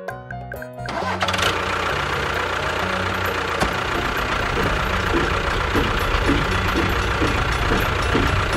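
A short musical jingle, then about a second in an engine or motor starts and runs steadily with a low rumble.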